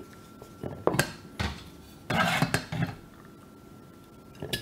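Kitchenware being handled: a few sharp knocks about a second in as the cork stopper comes out of a glass bottle and is set down, then metal clattering and scraping for under a second as the stainless saucepan with its mesh strainer is handled, and one more knock near the end.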